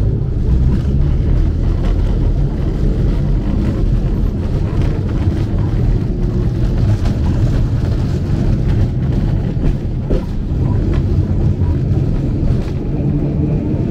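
A 97-year-old tram car running along a street, heard from inside the car: a steady low rumble of wheels on rails and running gear.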